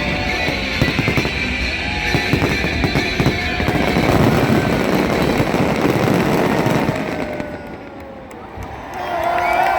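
Fireworks display: a dense run of bangs and crackles with music playing over it. It eases off briefly about three-quarters of the way through, then picks up again.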